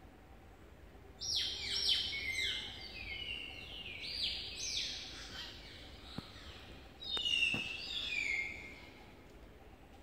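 Birds calling in a rapid run of overlapping whistled notes, each falling in pitch. The calls come in two bouts: the first starts about a second in, the second about seven seconds in.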